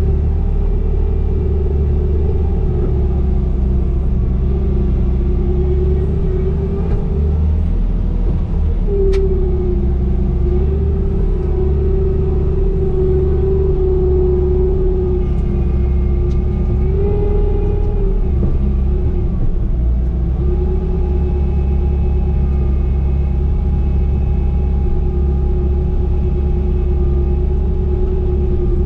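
Diesel engine of a Bobcat compact machine running steadily under working load, its pitch dipping and recovering a little now and then as the hydraulics are worked.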